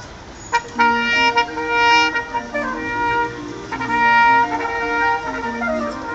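Barrel organ playing a tune: held notes over a bass line that steps back and forth between two low notes. It gets louder about half a second in.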